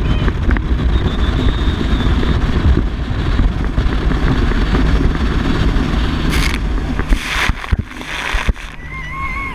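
Speedboat running fast over open water, with heavy wind buffeting on the microphone. From about six seconds in, spray splashes hit hard several times, and near the end a high wavering voice cries out.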